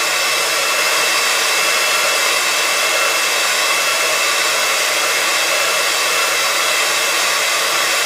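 Handheld embossing heat gun running steadily, blowing hot air to melt embossing powder on an MDF shape: an even fan rush with a thin steady high whine on top.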